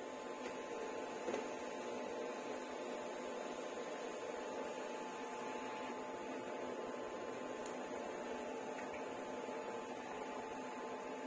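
A pot of sinigang broth with tilapia boiling on a gas burner under its lid: a steady bubbling hiss with a faint steady hum, and a light knock about a second in.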